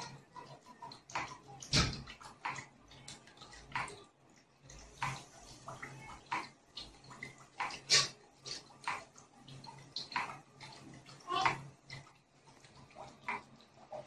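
Water splashing and dripping in irregular bursts, over a faint steady low hum.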